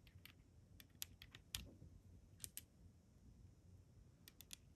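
Faint, scattered light clicks of metal handling on a Kimber K6 .357 Magnum revolver as a round is set back into its recessed cylinder chamber.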